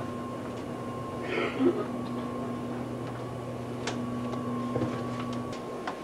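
Interior running noise of an ICE 1 (class 401) high-speed train: a steady hum and low rumble with a few faint clicks. A brief higher sound about a second and a half in is the loudest moment, and the hum cuts off shortly before the end.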